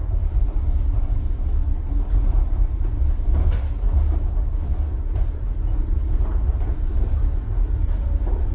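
Steady low rumble inside a cable-hauled airport people-mover car running along its guideway as it approaches the station.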